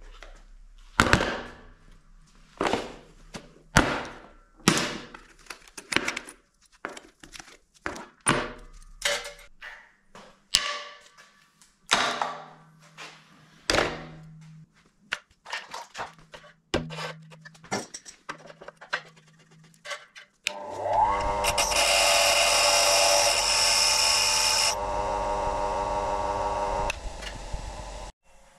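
A string of separate knocks and thunks as objects are set down on a perforated steel welding table. About twenty seconds in, an electric grinder motor starts with a rising whine and runs with a harsh grinding hiss for about four seconds, then runs on more quietly and stops abruptly near the end.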